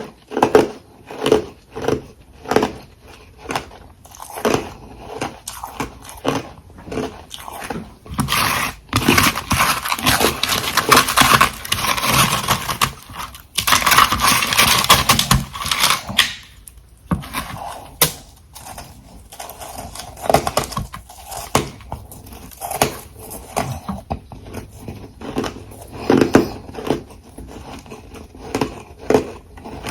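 Close-miked mouth chewing ice: regular crunches about twice a second, then a long stretch of dense crackling crunches from about 9 to 16 seconds in as a big bite of refrozen frost or crushed ice is broken down, then slower, scattered chews.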